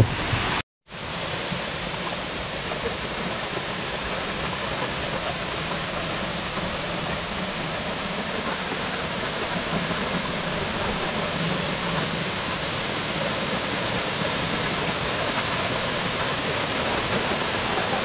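Steady rush of a waterfall, an even wash of falling water with no change in level. It begins after a split-second dropout less than a second in.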